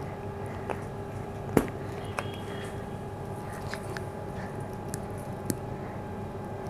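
A few light clicks and taps from a plastic seasoning shaker being handled and shaken over a plate, the loudest about one and a half seconds in, over a steady background hum.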